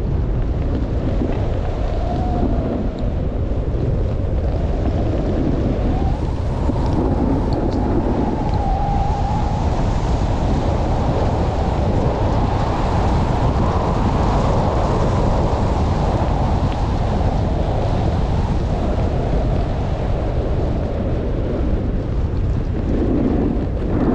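Snowstorm wind buffeting the microphone during a downhill run, a steady heavy rushing noise that holds without a break.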